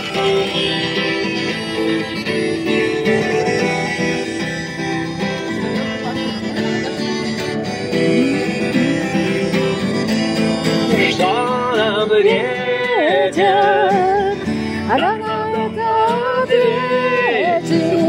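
Acoustic guitar strummed through an instrumental break between verses of a song. From about eleven seconds in, a wavering melody line with vibrato joins over the guitar.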